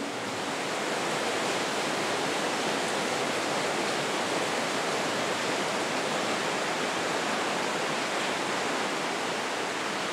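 Rushing water of a fast mountain stream, a steady even hiss that does not change.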